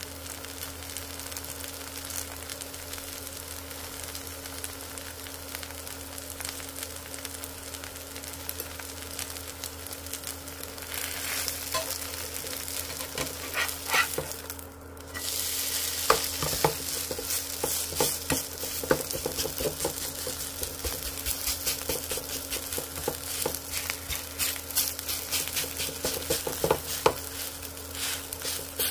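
Chive pancake batter sizzling as it fries in oil in a nonstick frying pan. After a short dip about halfway, the sizzling is louder, with many sharp scrapes and taps of a spatula against the pan as the pancake is turned and pressed down.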